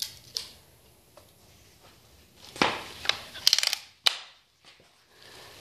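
Scattered mechanical clicks and knocks from a BB gun being handled, with a quick rattling run of clicks about three and a half seconds in and a sharp click just after.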